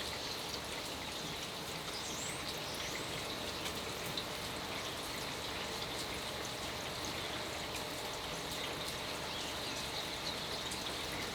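Steady heavy rain falling together with water pouring over an overflowing dam, an even hiss without breaks.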